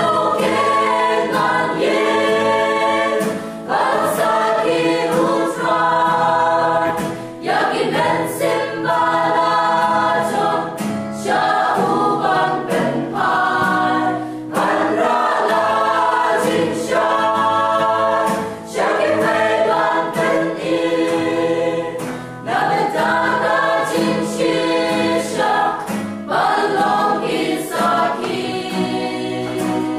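Mixed choir of young men and women singing a Christian song together, in sung phrases a few seconds long with short breaks for breath between them.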